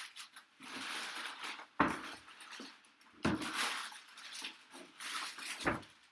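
Cardboard and packing material being handled and pulled open: irregular rustling and scraping, with three dull knocks against the box.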